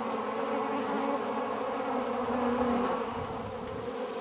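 Honeybees in flight buzzing, a steady hum of wings that swells slightly about halfway through.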